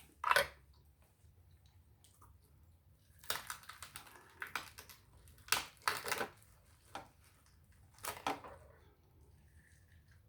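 Crackling and cracking of crab shells and seafood being broken apart by hand over a pan, in several short bursts.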